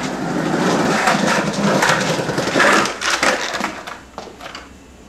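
Skateboard rolling over a hard tiled floor, its wheels rumbling with repeated clacks and knocks, dying away about four seconds in as the board stops.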